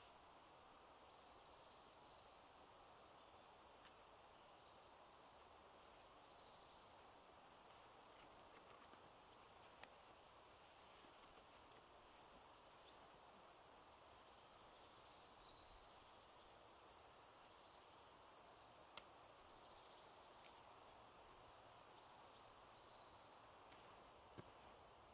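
Near silence: faint woodland ambience with distant birds chirping now and then, and three soft clicks.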